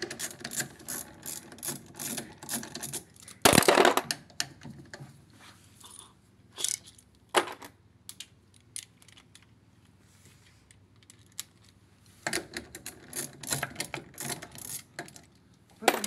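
Hand tools and loose metal screws clicking and clattering as they are handled during appliance disassembly, in quick runs of clicks, with one louder clattering burst about three and a half seconds in and a quiet spell in the middle.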